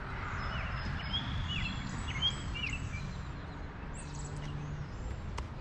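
Small birds chirping, short quick notes repeated several times, over a steady low outdoor rumble.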